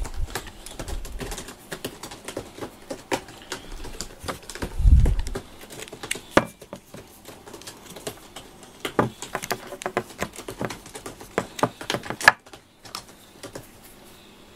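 Irregular clicking and tapping of a plastic FURminator deshedding brush handled against a wooden tabletop while cat hair is cleared from it, with one dull thump about five seconds in.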